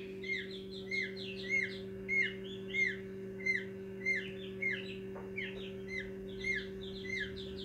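Newly hatched peachicks peeping inside an egg incubator: short, high chirps repeated about one and a half times a second. Under them runs the incubator's steady low hum.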